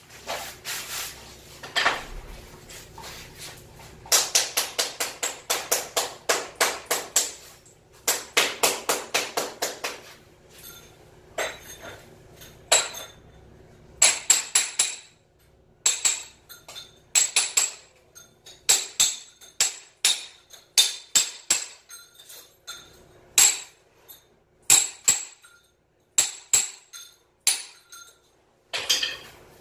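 Hand hammer striking metal against floor tile and mortar: sharp ringing blows, in quick runs of about three a second early on, then single and paired blows spaced farther apart.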